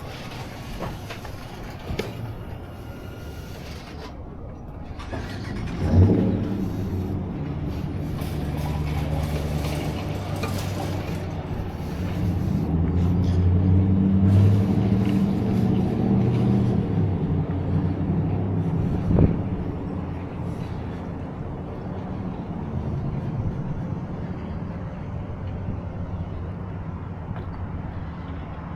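A motor vehicle's engine running close by. It builds from about six seconds in, is loudest about halfway through and then eases off, with a sharp knock about six seconds in and another around nineteen seconds.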